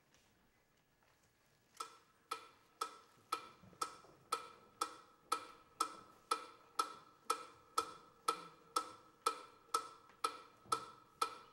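Metronome clicking at a steady tempo, about two clicks a second, starting about two seconds in.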